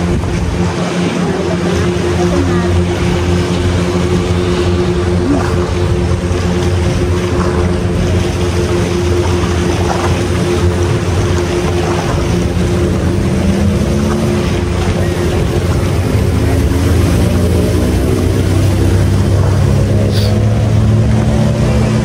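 Speedboat engines running, a steady drone whose pitch slowly drifts and shifts, growing a little louder over the last several seconds.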